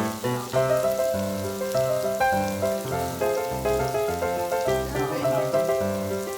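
Background music, a melody of held notes over a bass line, with a faint sizzling hiss underneath like pork belly frying on a grill.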